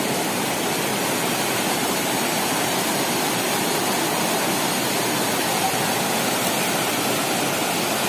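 River water rushing over rocky rapids and small falls: a steady, even rush of white water.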